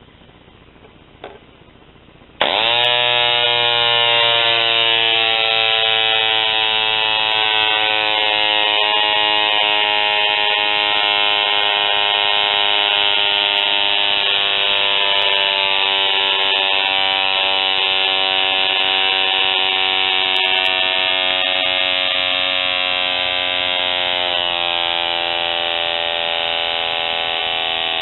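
Herkimer "OK" CO2 model engine swinging a 5-inch three-blade propeller on a test stand: after a small click, it starts abruptly about two and a half seconds in and runs as a steady high buzz. Its pitch sags slowly as it runs, with a small drop near the end.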